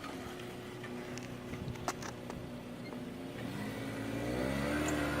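Car engine running steadily, then revving up with a rising pitch from about three and a half seconds in. A sharp click comes about two seconds in.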